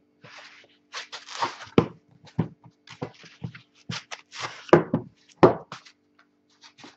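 Foam packing end caps scraping and rustling against a cardboard box as they are pulled off, with two sharp knocks a little over halfway through as things are set down on the wooden desk.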